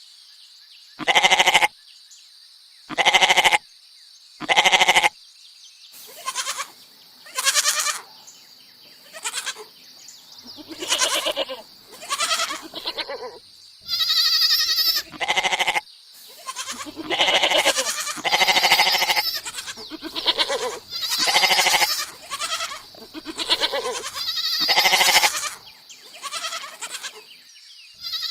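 Goat bleating over and over, a quavering call every second or two. The first few bleats are the loudest, and the later ones come closer together and vary in loudness.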